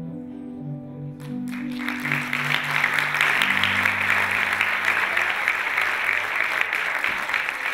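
Audience applause breaking out about a second and a half in and swelling to loud, steady clapping, over the last low, held notes of the music fading out.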